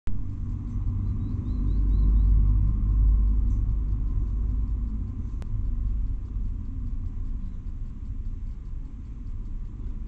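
Low rumble of a passing vehicle that swells over the first few seconds and then slowly fades. A quick run of five short rising bird chirps comes about a second in.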